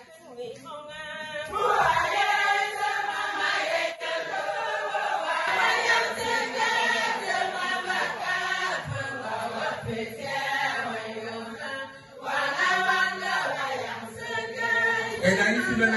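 A group of voices singing together in chorus, a chant-like song.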